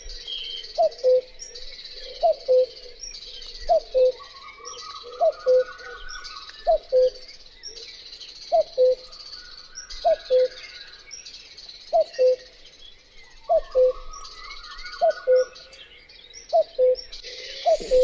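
Common cuckoo (Cuculus canorus) giving its two-note "cu-coo" call, the second note lower, repeated about every one and a half seconds.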